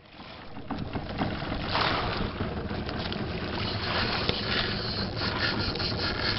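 Wind rushing over the microphone and sea noise on a small outrigger boat, with a steady low hum underneath. The noise fades in over the first second, with louder gusts about two seconds in and again around four to five seconds.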